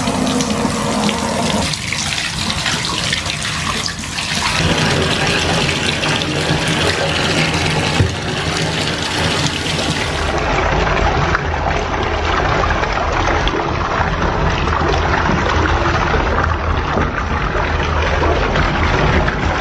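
Bathtub faucet running hard into a filling tub: a steady rush of pouring water. About ten seconds in it turns duller and deeper.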